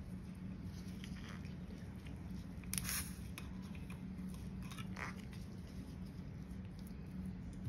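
Paintbrush dabbing and scraping thick, gritty baking-soda paint onto a glass bottle: a few short scratchy strokes, the loudest about three seconds in, over a faint steady low hum.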